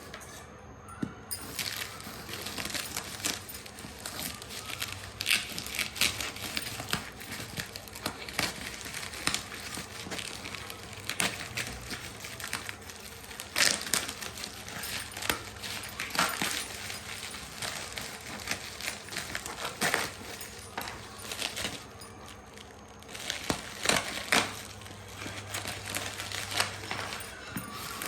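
Packaging crinkling and rustling as a parcel is unwrapped by hand, with frequent sharp crackles.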